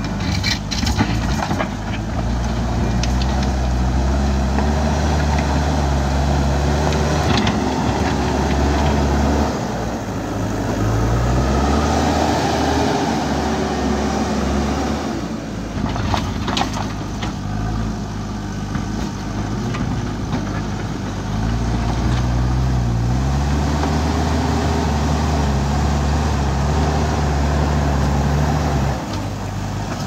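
A JCB 3DX backhoe loader's diesel engine revs up and down under load as the front bucket pushes dirt and rock, with a few sharp clanks of stones and steel.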